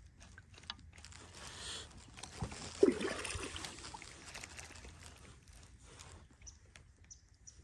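Water sloshing around a kayak, with one louder splash or slosh just before three seconds in. Light ticking from a baitcasting reel is heard early on.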